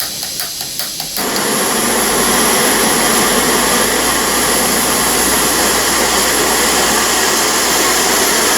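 Ozark Trail camp stove burner running on a butane-propane canister, a steady rushing hiss of gas and flame. Light ticks about four a second in the first second, then the rush gets louder and stays steady.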